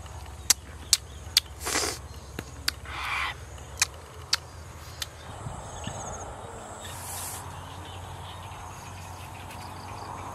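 Close-up eating sounds: grilled snake meat being chewed, with a string of sharp mouth smacks and wet chewing over the first few seconds. After about five seconds these stop and a steady outdoor background hiss takes over.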